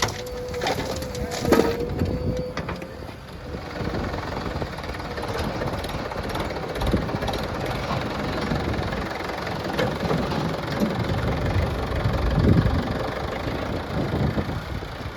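Diesel engines of a backhoe loader and tractor running while mud is loaded, with a few knocks and a steady whine in the first few seconds.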